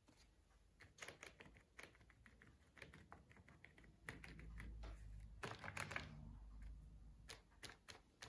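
Faint, irregular light tapping of fingertips dabbing acrylic paint onto a sheet of paper, with a soft rubbing of hand on paper about halfway through.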